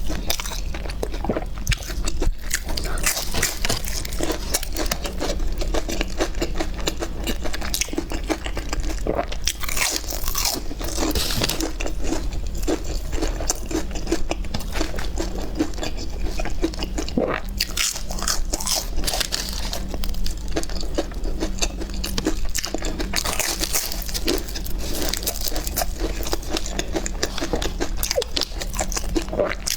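A person biting and chewing crisp fried food close to the microphone, with continuous irregular crunching.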